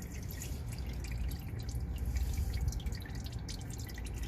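Transmission fluid dripping from the torque converter's drain opening on a Mercedes automatic gearbox: a run of quick, irregular drips and small taps over a low steady rumble.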